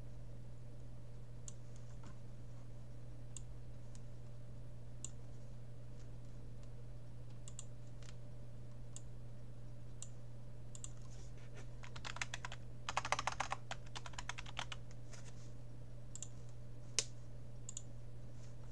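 Typing on a computer keyboard: scattered single key clicks, then a quick run of keystrokes about twelve seconds in and one sharp click near the end, over a steady low hum.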